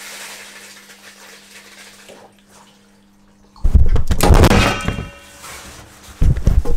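A camera on a Gorillapod flexible tripod topples as the tripod collapses. A faint steady hum and hiss come first, then about three and a half seconds in a loud clatter and rumble as the camera falls and knocks, and another heavy knock near the end.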